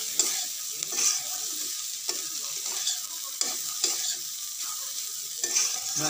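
Shredded boiled chicken being stirred with a spatula in a steel kadai, sizzling in a little oil with fried onion, ginger and garlic; the spatula scrapes through the pan in repeated, irregular strokes over a steady sizzle.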